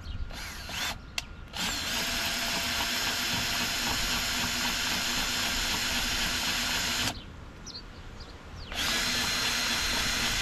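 Cordless drill used as a starter, spinning over a nitro RC boat engine to prime it: two short blips, then a steady whine of about five seconds, a short pause, and another long spin. The engine does not fire.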